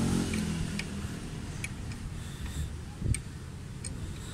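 Scattered light metallic clicks of a socket wrench working a tight bolt on a motorcycle's rear brake master cylinder as it is loosened, with one louder knock about three seconds in.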